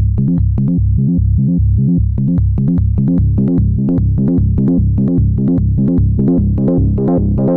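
Moog Rogue two-oscillator analogue monosynth playing a fast, even, step-sequenced four-note bass line in sixteenth notes. The tone goes duller about a second in, then brightens steadily toward the end as the filter cutoff is opened.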